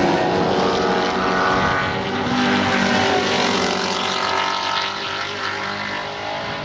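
Holden VX Commodore SS's 5.7-litre L98 V8 race engine running hard, its pitch rising and falling as it is revved and pulls through the gears.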